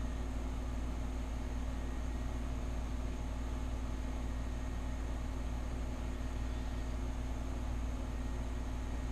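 Steady, unchanging low hum with a faint even hiss, like a motor or appliance running in the room.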